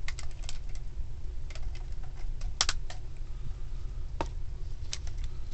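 Scattered sharp clicks and clacks of hard plastic toy parts, from a Power Rangers Plesio Charge Megazord being taken apart and reassembled, over a low steady hum.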